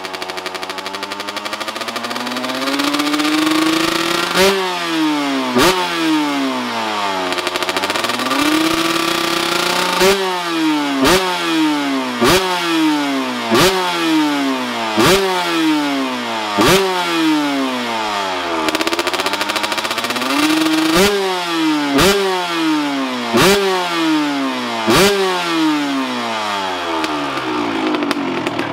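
2020 Kawasaki KX125 two-stroke dirt bike engine on a stand, its speed creeping up at first, then blipped hard about a dozen times. Each rev climbs fast and falls back slowly, with a sharp crack at the top of each.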